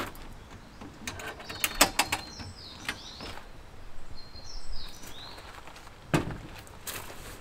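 Clicks and knocks of a fold-down table on a Land Rover Defender's rear door being unlatched and handled, a run of sharp clicks about a second in and a knock about six seconds in as a bottle is set down on it. Small birds chirp briefly in the background.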